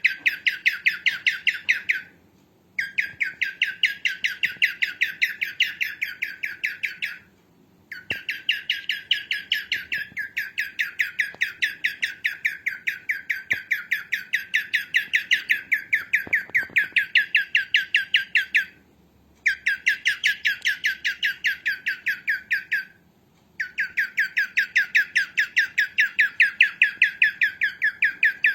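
Cockatiel giving long runs of rapid, evenly spaced chirping calls, with short pauses between the runs.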